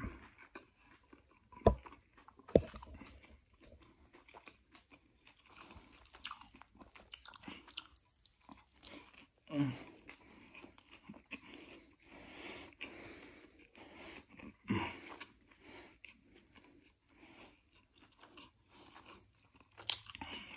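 Close-up chewing of a chicken burger: wet mouth clicks and smacks, with two sharp louder clicks about two seconds in.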